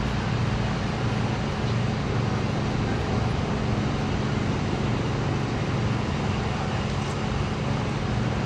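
Steady low rumble of engine noise, level and unchanging throughout, with no rise or fall in pitch.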